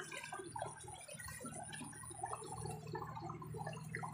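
Water splashing and dripping in many small irregular spurts, over a steady low hum.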